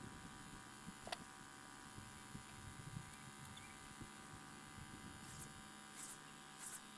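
Near silence: a faint steady hum, with a single sharp click about a second in and a few brief faint hisses near the end.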